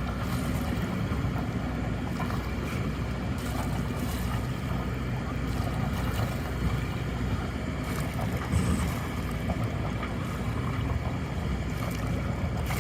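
A boat's engine running steadily with a low hum, with wind rushing on the microphone.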